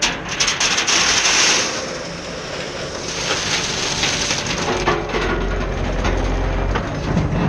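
Loose sandstone gravel pouring and rattling, loudest in the first two seconds, over the low running of a heavy machine's engine.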